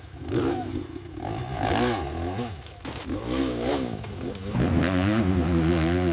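Hill-climb motorcycle engine revving hard, its pitch repeatedly rising and falling, then holding higher and steadier from about four and a half seconds in.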